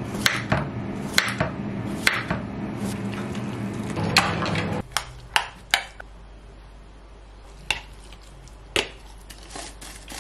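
Kitchen knife slicing cucumber on a wooden chopping board, a quick run of sharp taps over a steady low hum. The hum cuts off suddenly about five seconds in, and a few scattered clicks of a fork and a plastic food tub follow.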